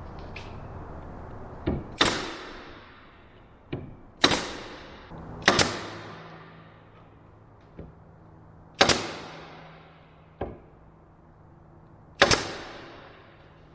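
Nailing: five loud, sharp strikes, each shortly after a lighter tap, echoing in a large room.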